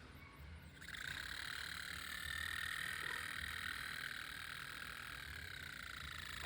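Cooler Master AIO liquid cooler pump buzzing: a steady high-pitched buzz that starts about a second in and sags slightly in pitch. This is the abnormal pump noise of a noisy AIO pump.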